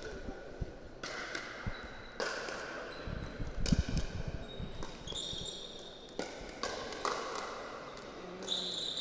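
Pickleball rally: a series of sharp pops as paddles strike the hollow plastic ball, with the ball bouncing on the hard court, echoing in a large hall.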